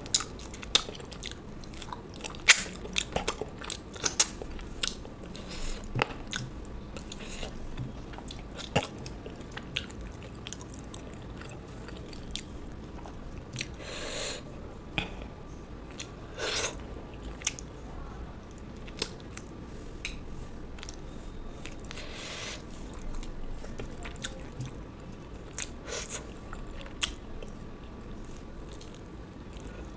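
Close-miked eating sounds: a person chewing and biting food, with irregular sharp clicks and crunches scattered throughout and a few longer crunching stretches.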